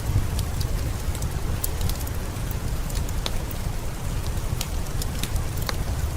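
Steady heavy rain with a deep, even rumble, overlaid by scattered sharp crackles and pops of a wood fire in a fireplace.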